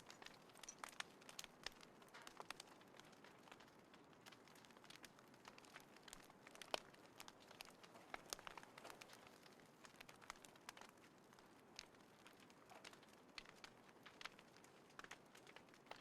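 Small wood fire burning in a compact folding fire stand, crackling faintly with irregular sharp pops over a soft hiss; one louder pop about seven seconds in.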